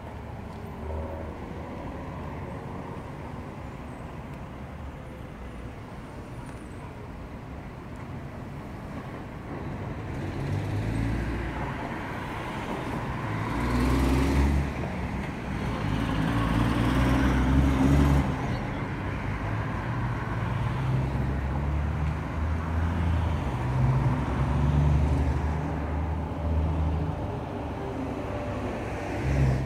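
City street traffic: cars passing through an intersection with low engine and tyre noise. It is a steady background hum at first, then grows louder from about a third of the way in, with the loudest passes around the middle.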